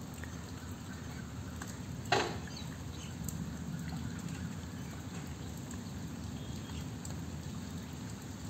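Steady patter of rain and dripping water, with one sharp knock about two seconds in.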